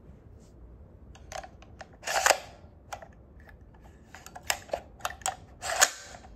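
Handling noise of a 6.5 Grendel AR-15 pistol and its curved magazine: a string of sharp clicks and light knocks, with two louder scraping rattles about two seconds in and near the end.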